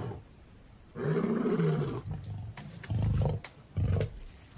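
Male lion roaring: one long, low call about a second in, followed by short grunts about a second apart. It is a territorial roar asserting dominance and ownership of the pride's land after a rival intruder has been driven off.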